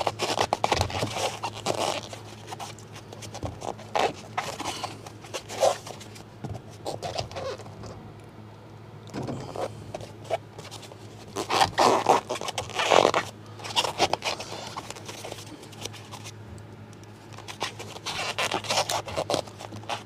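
Closed-cell foam pipe insulation being worked by hand against the foil-taped line and the unit's sheet metal: irregular scraping and rubbing, in several short clusters, over a steady low hum.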